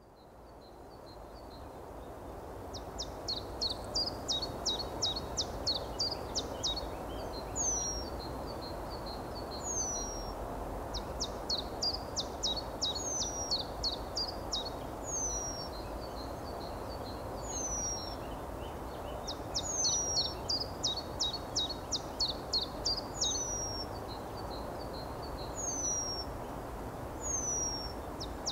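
Songbirds singing: repeated phrases of rapid high trills alternate with short, thin whistles that fall in pitch, over a steady low background noise. The whole fades in over the first couple of seconds.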